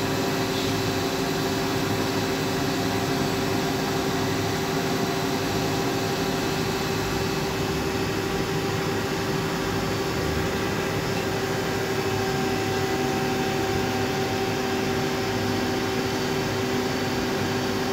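Hyd-Mech H14A automatic horizontal band saw running, a steady mechanical hum with several constant tones over an even noise.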